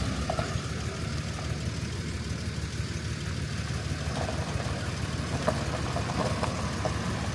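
Volkswagen Transporter van's engine running low and steady. From about four seconds in, scattered crackles join it, gravel under the tyres as the van rolls forward.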